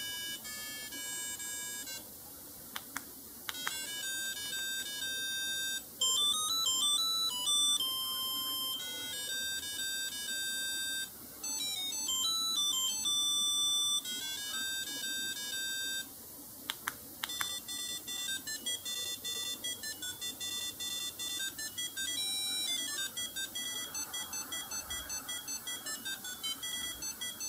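BlackBerry 7230 ringtones playing one after another through the phone's small speaker: short, high electronic melodies that change every few seconds. The last is a fast run of repeated beeps.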